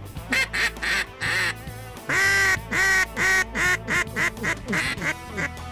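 Mallard duck call blown in a loud series of about a dozen quacks, each note dropping in pitch, the longer ones in the middle giving way to shorter, quicker ones toward the end: calling to ducks circling overhead.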